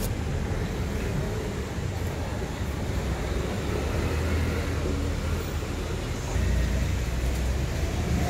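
Street ambience: a steady hum of road traffic with a low rumble, getting a little louder about six seconds in.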